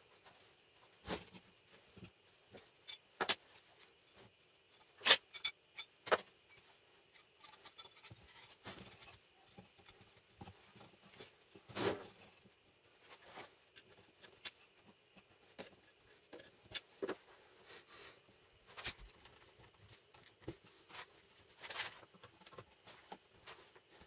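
Irregular clicks and knocks of steel parts and hand tools being handled and set down on a wooden workbench while the spot welder's square steel arms are fitted into their wooden frame. A sharp knock about five seconds in is the loudest.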